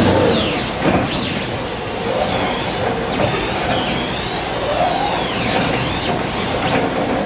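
Gantry laser cutter's head motors whining as the head traces curves in walnut veneer, their pitch gliding up and down as it speeds and slows, over a steady rush of air from the vacuum hold-down table.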